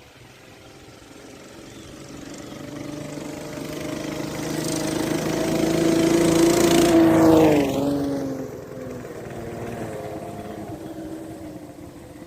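Axis M200 mini bike, set up without its jackshaft, riding toward and past at speed: its small engine grows steadily louder for about seven seconds, drops in pitch as it goes by, then fades away.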